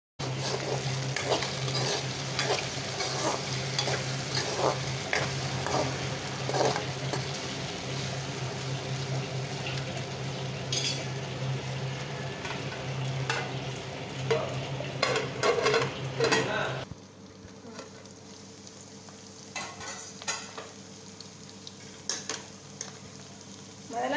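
Masala-coated ivy gourd strips sizzling as they fry in oil in a metal kadai, with scattered sharp clicks and scrapes of a spoon against the pan. About 17 seconds in the sizzle drops abruptly to a softer level.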